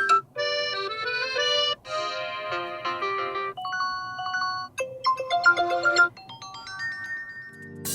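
Honor 50 smartphone ringtones previewed one after another: short melodic electronic tunes and chimes, each cut off after a second or two and replaced by the next, about five changes in all.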